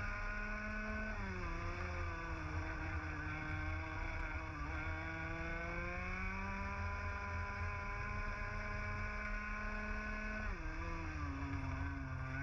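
Onboard sound of a racing go-kart's 125cc two-stroke TAG engine at speed. The engine note drops sharply about a second in as the driver lifts for a corner, climbs steadily for several seconds under acceleration, then drops sharply again near the end for the next corner.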